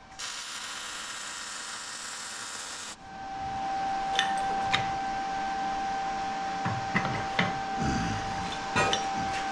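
MIG welding arc hissing steadily for about three seconds, stopping abruptly. Then steel plates of a belt grinder chassis knock and clank several times as they are handled, over a steady high-pitched tone.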